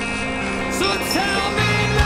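Rock song with a singing voice over guitars and bass; the bass note changes near the end.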